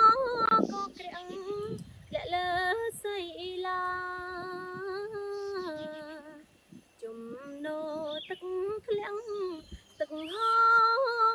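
A high voice singing a slow, unaccompanied melody with long held notes and a brief pause in the middle.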